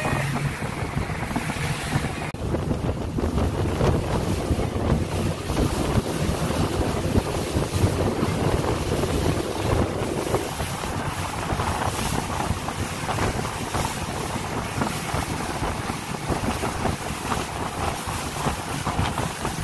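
Wind buffeting the microphone over the rush and splash of choppy sea against a moving boat's hull: a steady, dense noise with no pauses.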